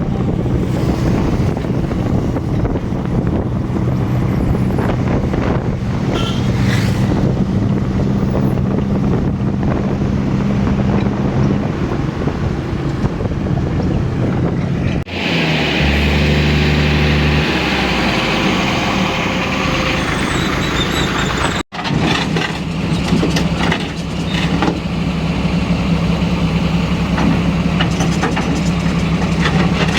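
Heavy diesel engine running steadily under load, its sound changing abruptly twice, about halfway through and again a few seconds later.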